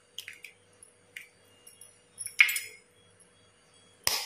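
Eggs being cracked with a metal spoon over a steel bowl: scattered light clicks and clinks, a louder crack about halfway through and a sharp one near the end.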